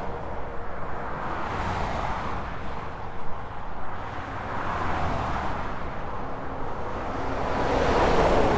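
Four-lane motorway traffic recorded 5 m from the nearest carriageway: a steady wash of tyre and engine noise, with separate vehicles passing by, swelling and fading about every three seconds. The loudest pass-by comes near the end.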